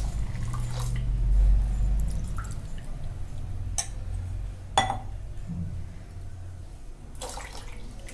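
Milk being poured into a pan of simmering jaggery tea, a low pouring sound loudest in the first two seconds and fading, then two sharp clinks about four and five seconds in.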